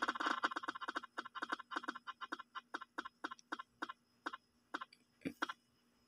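Spin-the-wheel app ticking through a phone speaker as its on-screen prize wheel spins. The clicks come quickly at first and slow steadily to a few widely spaced ticks as the wheel coasts toward a stop.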